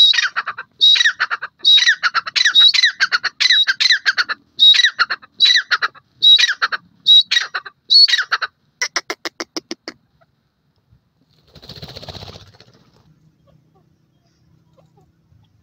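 Grey francolin (teetar) calling loudly: a run of about a dozen repeated call notes over some eight seconds, then a quick series of short clicking notes that stops about ten seconds in. A brief rustle follows around two seconds later.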